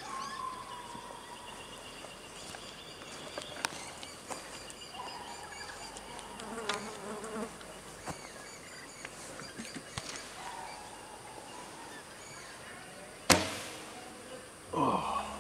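Flies buzzing on and off near the microphone. About thirteen seconds in, the sharp snap of a traditional recurve bow as it is shot, followed a second or so later by a short sound falling in pitch.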